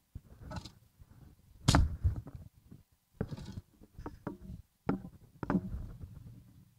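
Shovel digging into and scraping through garden soil, moving dirt to hill up potato sprouts: a run of irregular scrapes and thuds, the loudest about two seconds in.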